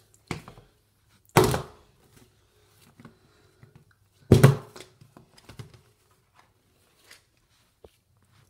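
Plastic lotion bottle flipped and landing with a loud thunk on a hard bathroom surface, twice, about three seconds apart, each followed by smaller knocks as it tips and rattles over: failed flips that don't land upright.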